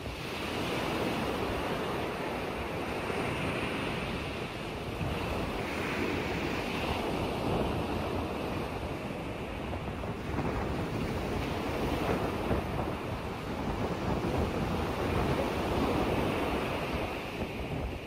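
Choppy lake waves washing and splashing steadily, with wind buffeting the microphone.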